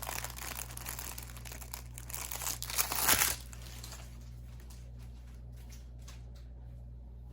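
Plastic packaging crinkling as it is handled, loudest about three seconds in and stopping soon after, followed by a few faint light taps.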